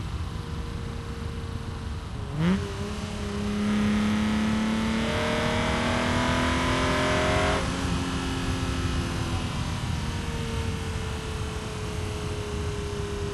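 BMW E36 M3 straight-six engine through a Supersprint street exhaust with the catalytic converter removed. A quick rev blip comes about two seconds in, then the car accelerates with the revs climbing steadily and louder for about five seconds. Then the throttle is lifted and the revs fall slowly as the car coasts.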